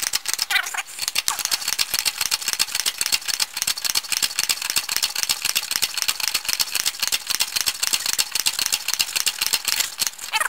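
Fast, even metallic rattling from a tool working on the seized, rusted-in bush of the Camry's engine mount.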